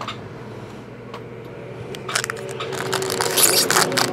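A few light taps, then from about two seconds in the crinkling and tearing of a foil-and-plastic Bowman Inception trading-card pack wrapper being pulled open by hand, growing louder.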